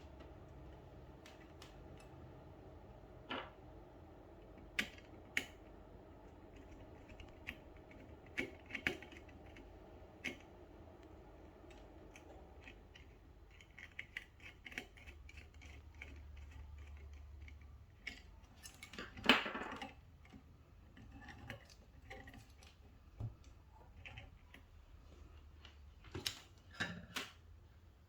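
Scattered faint clicks and taps of a wire being fitted into a gas detector's terminal block by hand and tool, with a louder clatter about two-thirds of the way through.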